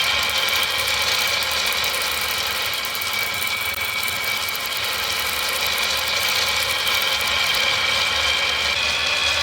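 Toy vehicles rolling down wooden ramps: a continuous rolling clatter of small wheels on wood, with a steady high tone over it.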